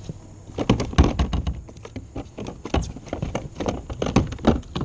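Irregular knocks, taps and thumps close to the microphone in a plastic fishing kayak as a small hooked pickerel wriggles on the line and is shaken off. The loudest knock comes about a second in.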